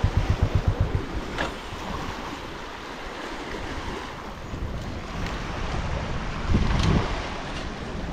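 Wind buffeting the microphone, with heavy low rumbling gusts in the first second and again about six and a half seconds in, over a steady rushing noise.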